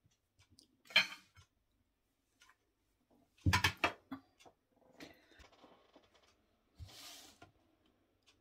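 Quiet, scattered handling sounds of cake-making on a table: a few light rustles and soft knocks. The loudest is a short cluster of sharp knocks about three and a half seconds in.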